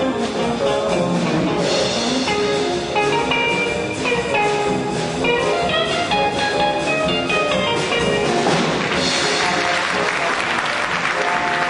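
Jazz big band playing live: saxophones and brass over a rhythm section with drum kit, with cymbal crashes about two seconds in and again near nine seconds.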